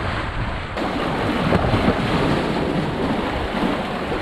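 Sea waves surging and splashing between the rocks of a breakwater, with wind buffeting the microphone.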